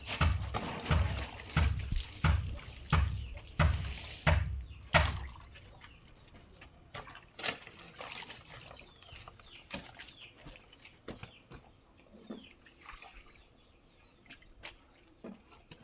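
Clothes being hand-washed in a basin: water sloshing in rhythmic strokes, about three every two seconds, stopping about five seconds in. Faint high chirps follow.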